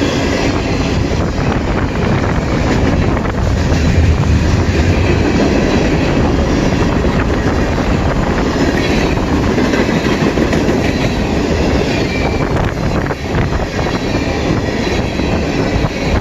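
CN freight train's cars rolling past at close range: a steady loud rumble of steel wheels on rail with rapid clicking over the rail joints.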